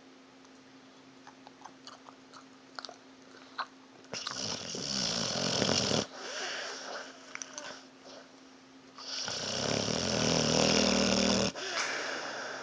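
Pit bull snoring: two long, loud snores of about two seconds each, the first about four seconds in and the second about nine seconds in, with a few faint clicks before them.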